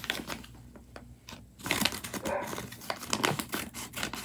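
Children's scissors snipping through a folded paper envelope, with the paper crinkling as it is handled; the cutting starts about one and a half seconds in.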